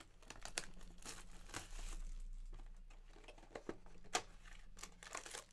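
Cardboard packaging of a trading card box crinkling and tearing as it is opened by hand. The rustling is scattered with short clicks, and one sharper click comes about four seconds in.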